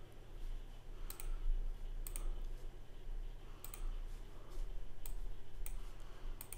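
Computer mouse buttons clicking: several sharp, separate clicks about a second apart, over a low steady hum.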